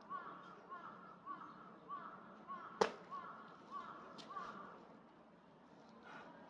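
A bird calling over and over in short, even calls, about two a second, falling silent about two-thirds of the way through. One sharp knock cuts in about three seconds in.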